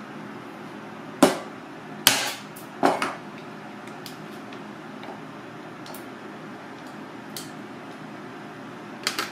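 Sharp cracks and knocks as a cooked lobster claw's shell is broken open by hand: three loud ones about a second apart in the first three seconds, a few faint ticks, then a quick double knock near the end. A steady background hum runs underneath.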